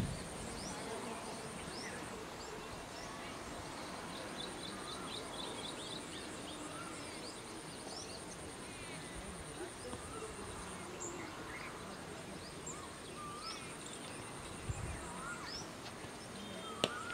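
Open-air ambience of birds chirping in short rising calls over a steady, high-pitched insect buzz that drops out for a while and comes back. Near the end a single sharp knock.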